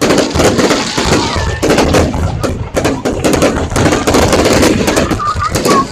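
Aerial fireworks display going off in a dense, continuous barrage of sharp bangs and crackles, many reports a second.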